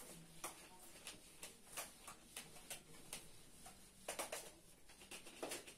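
Whiteboard eraser rubbed across the board in short back-and-forth strokes: a faint run of quick scrubbing sounds, about two or three a second, bunching up a little after four seconds in and again near the end.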